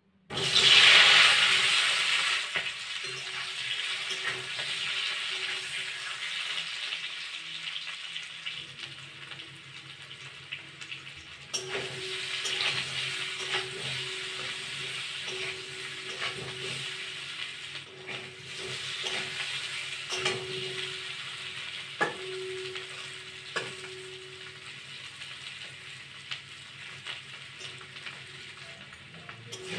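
Potato chunks dropped into hot oil in a steel wok: a sudden loud burst of sizzling that settles into steady frying. A few sharp knocks of stirring against the pan come through the sizzle later on.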